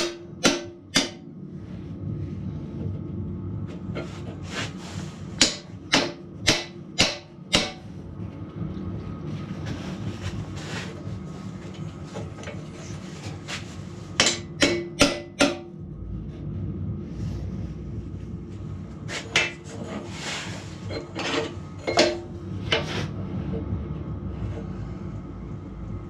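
Hammer blows on steel during a backhoe pin repair, struck in quick runs of about five, with a steady low hum underneath.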